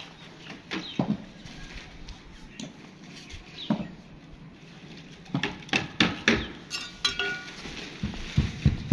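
Scattered knocks, scrapes and shuffles of hand work in a damp sand-cement mortar bed while a marble floor is laid, with a cluster of sharper taps from about five to seven seconds in.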